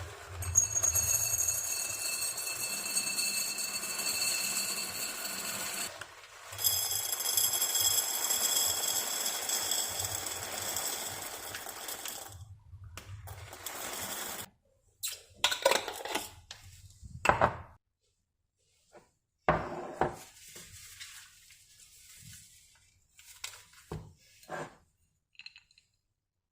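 A small electric kitchen appliance motor runs with a steady high whine in two runs of about five seconds each, with a short break between them. A few sharp knocks and clatters follow.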